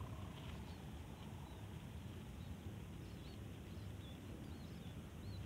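Wind rumbling steadily on the microphone, with faint high bird chirps scattered throughout. The kite's sendaren hummer gives no hum, just as the title says it would not sound.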